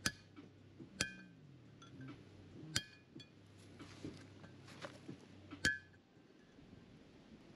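Hammer blows on a punch driving a wheel-bearing race out of a Toyota Hilux front hub: four sharp metallic strikes at irregular intervals, each with a short ring from the hub and rotor, and a few lighter taps between.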